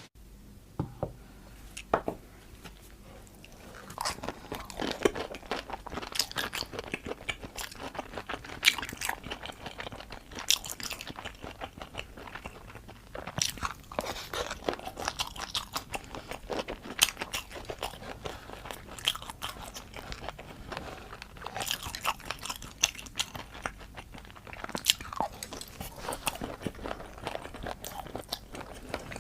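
Close-miked eating sounds: a person biting and chewing crunchy food, with irregular crisp crunches and crackles, sparse at first and steadier from a few seconds in.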